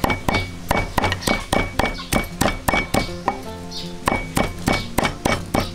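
Background music with a fast, even clicking beat and a brief held chord a little past the middle.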